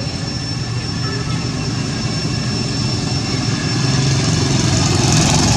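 A motor engine drones steadily, growing louder over the last second or two, with a thin steady high whine above it.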